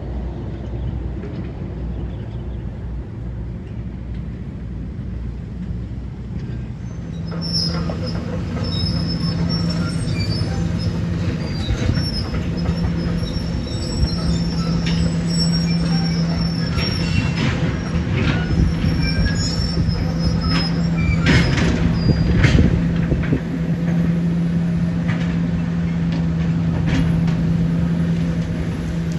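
Heavy demolition machinery working: a steady engine hum with high-pitched metallic squealing and scattered clanks, the squeals and hum starting about seven seconds in.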